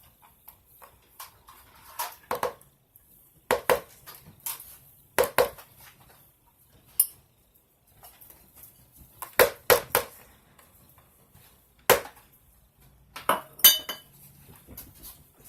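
A spoon knocking and clinking against a measuring cup and a bowl while mayonnaise is scooped into mashed egg yolks, in separate knocks a second or two apart.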